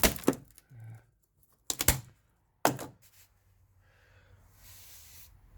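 A few sharp knocks and clunks of loose wooden pieces being knocked out and handled inside a fibreglass dinghy: one at the start, then a quick cluster near two seconds in and another shortly after.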